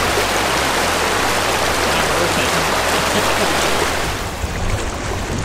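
Rushing water of a shallow river riffle, a steady full hiss. About four seconds in it turns duller as the high end drops away.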